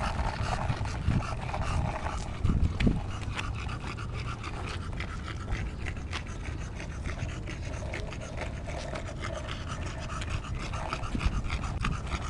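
Bulldog panting hard while riding a skateboard, the board's wheels rolling with a steady rumble and rattle over rough asphalt.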